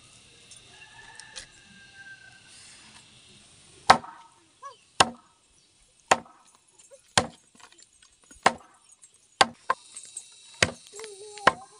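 Curved chopping knife hacking chicken pieces on a wooden log used as a chopping block, sharp chops about once a second starting about four seconds in, some eight in all.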